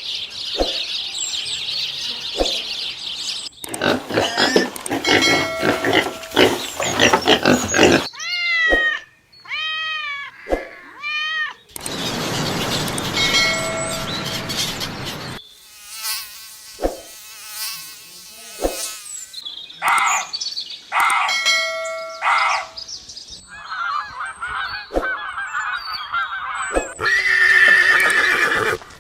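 Calls of young farm animals and pets in quick succession, changing abruptly every few seconds, with a run of four rising-and-falling cries near the middle.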